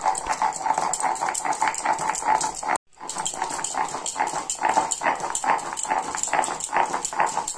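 Stone pestle (nora) rolled rapidly back and forth over a flat grinding stone (shil), grinding mustard seed, poppy seed and coconut into a paste: a steady run of gritty scraping strokes, several a second, broken briefly about three seconds in.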